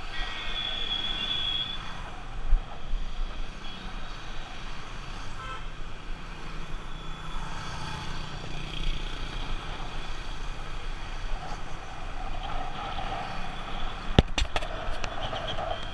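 Riding a motorcycle in traffic, heard from a helmet-mounted camera: steady engine and wind noise with passing vehicles. A vehicle horn sounds in the first two seconds, and a few sharp knocks near the end come from a hand touching the camera.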